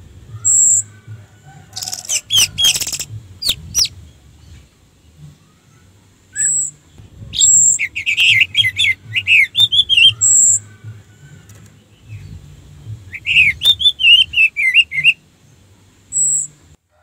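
Orange-headed thrush singing: short high whistled notes scattered through, with two fast runs of varied chattering notes about eight and thirteen seconds in, and a brief burst of harsh, scratchy sounds about two seconds in.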